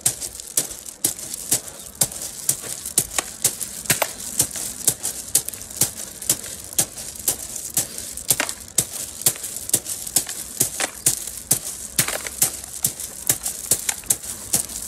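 Fingertips driven again and again into a drum of gravel and small rocks, the stones clacking and rattling on each strike at about three strikes a second, with the hands alternating.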